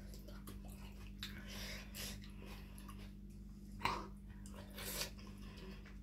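Eating sounds close to the microphone: wet chewing and mouth smacks in short scattered bursts, with one sharp smack about four seconds in, over a steady low hum.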